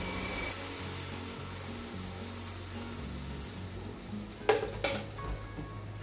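Crêpe-style pancake batter sizzling steadily in a hot, lightly oiled pan as it is poured in from a ladle and spreads. Two sharp knocks come close together about four and a half seconds in.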